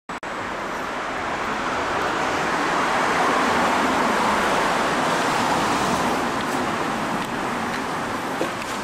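Road traffic noise, a steady rush that swells over the first few seconds and eases slightly near the end.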